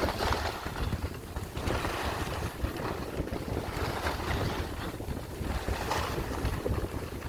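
Wind buffeting the microphone during a ski descent, a steady low rumble, with swells of hiss every second or two from skis carving through powder snow.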